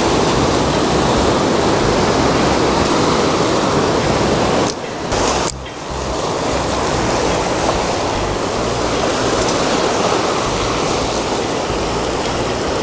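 Heavy surf breaking and rushing over a rocky shoreline, a steady loud wash that dips briefly about five seconds in.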